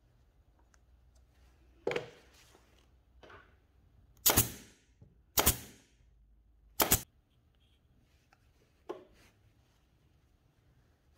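Nail gun firing three times in quick succession, about a second apart, driving nails into a small wooden trigger part. Softer knocks come before and after as the wooden pieces are handled.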